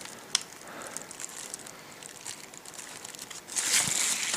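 Packaging wrap being handled and unwrapped: faint crinkling with a single sharp tick near the start, then a louder crinkling rustle near the end.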